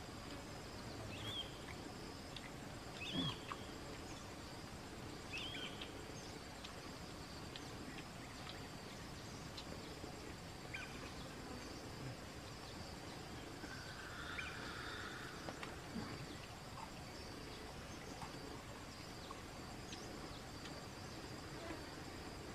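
Rural outdoor ambience: insects keep up a steady high-pitched drone, with a few short chirps in the first several seconds.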